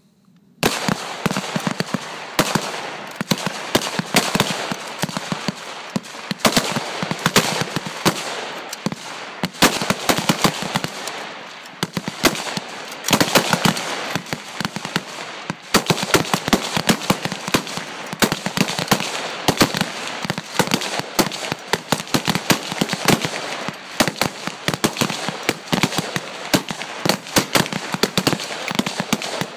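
A firing line of AR-15-style semi-automatic rifles shooting from the sitting position, many shooters at once, so the loud shots come thick and overlapping at an uneven pace. It starts about half a second in and keeps going.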